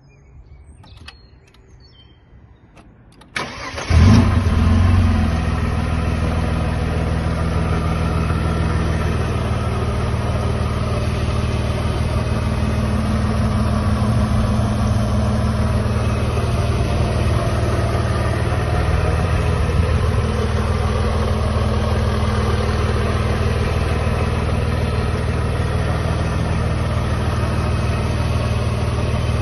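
Mercedes-Benz 111.960 engine being started: after a few faint clicks, the starter turns it over briefly about three seconds in. It catches with a short flare just after four seconds, then settles into a steady idle.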